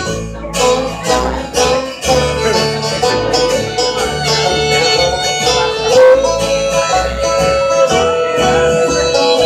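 Live band playing an instrumental passage: a lead melody of long held, sliding notes over a changing bass line, recorded through a phone's microphone.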